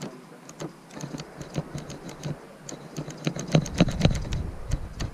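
Irregular light clicks and ticks, several a second, with a low rumble coming in about three and a half seconds in.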